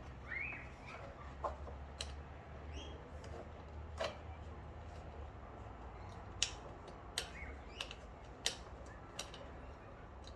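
Scattered light clicks and taps of small parts and a screwdriver being handled while a lawn mower carburettor is reassembled, one every second or two, with a few faint chirps in the first second.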